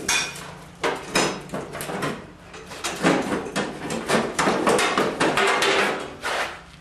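Steel rear fender and seat pan of an Allis-Chalmers 310 garden tractor knocking, rattling and scraping as it is worked loose by hand. There are a few sharp knocks in the first second or so and a longer stretch of scraping and clatter in the middle.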